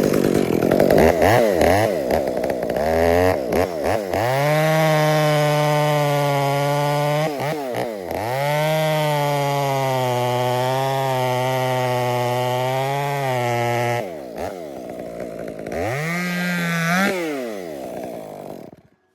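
Chainsaw cutting a face cut (the notch) into a maple trunk at full throttle. The engine note dips briefly between cuts, drops back to idle, revs once more, and cuts off near the end.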